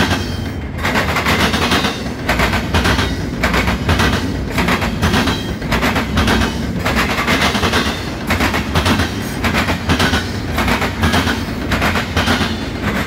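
Double-stack intermodal freight train passing close by: the steel wheels of the container well cars clack in a fast, continuous run of sharp bangs over the track, over a steady low rumble.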